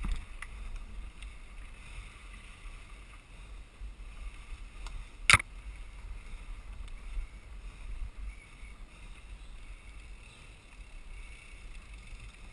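Mountain bike riding along a dirt singletrack, heard from the rider's camera: a steady low rumble with wind on the microphone, and one sharp knock about five seconds in.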